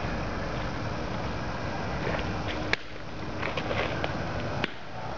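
Two sharp smacks, about three seconds in and near the end, over steady outdoor background noise. The later smack, just after the pitcher's release, is a softball curveball popping into the catcher's mitt.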